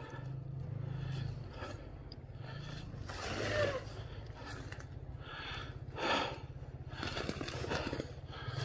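Two-stroke dirt bike engine idling with a steady low pulse, with a few short louder bursts over it about three, six and seven seconds in.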